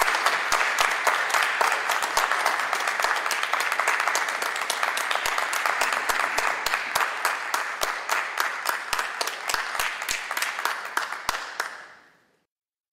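Audience applauding: steady, dense hand clapping that thins out and fades away about twelve seconds in.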